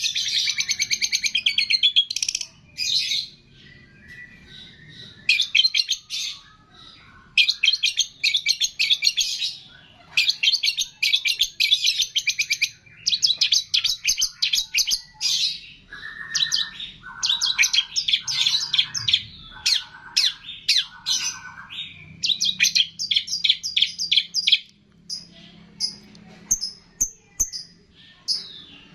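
Songbird song from a masteran mix: bursts of rapid, high chattering trills, each a second or two long, separated by short gaps. A little past the middle, four lower buzzy phrases come in among them.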